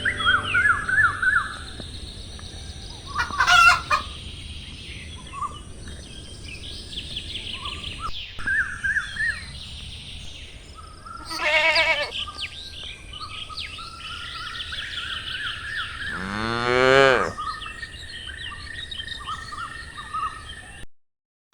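Farmyard animal sounds: small birds chirping and trilling throughout, a chicken calling about halfway, and a long cow moo falling in pitch near the end. The sound cuts off abruptly just before the end.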